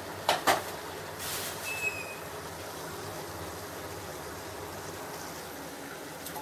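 Steady hum and hiss of a covered pan of curry cooking on an induction cooktop. Two sharp clicks come near the start, and a short rustle with a brief high tone follows about a second and a half in.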